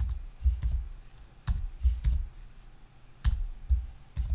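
Computer keyboard keys pressed in several short groups of two or three keystrokes, each with a dull thud, as lines of code are pasted in.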